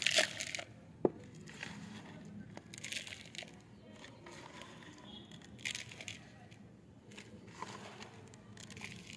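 Handfuls of dry potting mix (cocopeat, sand and compost) dropped and pressed into a small pot, a gritty rustle and crunch in a few short bursts, the loudest at the start, with a sharp click about a second in.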